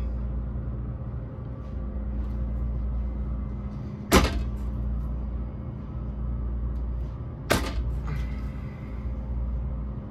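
Two sharp knocks about three seconds apart, the first the louder, as ice is knocked loose, over a steady low machinery hum.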